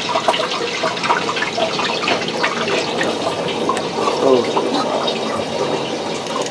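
Water rushing and gurgling through an RV's plastic supply lines after a valve is opened, a steady rush with small irregular crackles as the system fills.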